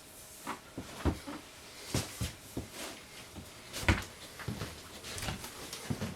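Irregular knocks and thuds, about a dozen in six seconds, of someone moving about and handling things on a hard floor; the loudest knock comes about four seconds in.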